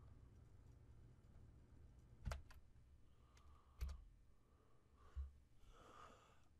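Faint, sharp computer clicks from keys or mouse: a quick double click, then two single clicks a second or so apart, with a soft rustle near the end, over a low steady room hum.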